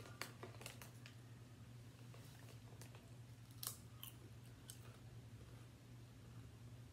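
Faint crunching of a potato chip being bitten and chewed, a handful of sharp crunches scattered through, over a steady low hum.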